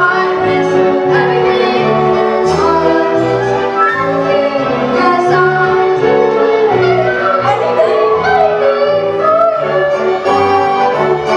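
Pit orchestra playing a bouncy show tune with a steady, regularly repeating bass line, and the cast singing together over it.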